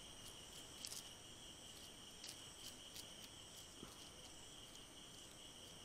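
Faint steady chorus of crickets, several high trills at once, with a few small clicks.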